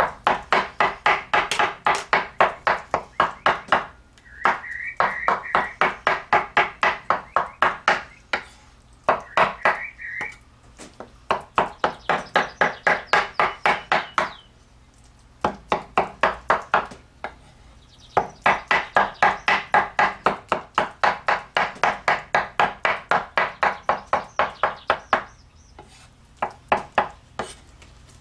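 Knife chopping food on a cutting board: quick, even strokes at about three or four a second, in runs broken by short pauses.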